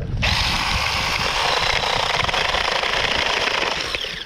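Battery-powered mini chainsaw switching on a moment in and running at a steady high whine as it cuts through a small branch about an inch thick, then winding down with a falling pitch near the end.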